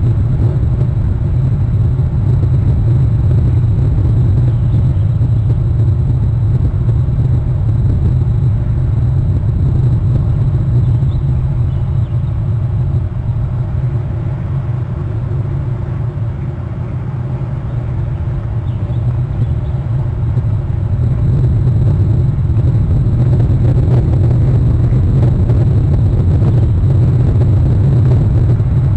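Steady low rumble of outdoor background noise, dipping slightly in loudness around the middle and rising again toward the end.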